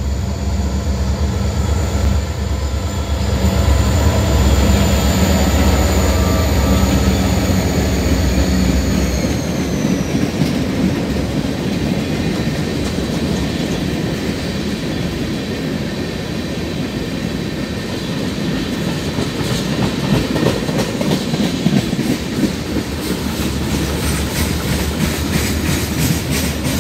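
Norfolk Southern diesel freight locomotive passing close by, its engine running with a high whine that drops in pitch as it goes past, about ten seconds in. Then a string of freight cars, mostly tank cars, rolls by with a steady rumble and rhythmic clickety-clack of wheels over rail joints, which grows more distinct in the second half.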